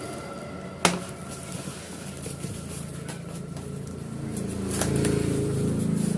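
Handling noise from a parcel being unboxed, with a sharp snap about a second in and a lighter click near the five-second mark. Under them is a low engine hum, like a passing vehicle, that grows louder over the last two seconds.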